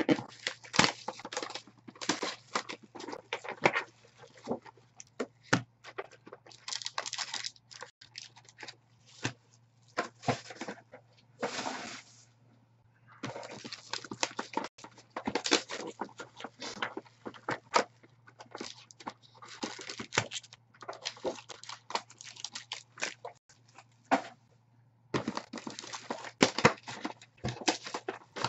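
Crinkling and tearing of plastic shrink-wrap and foil wrappers on sealed trading-card boxes and packs, in irregular crackly bursts with brief pauses, along with cardboard card boxes being handled.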